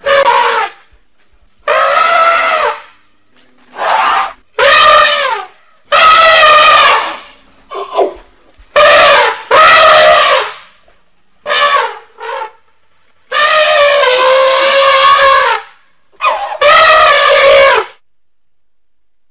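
Elephant trumpeting: a series of about a dozen loud, brassy trumpet calls with short gaps between them. Most calls last about a second, a few are short blasts, and one near the end holds for about two seconds.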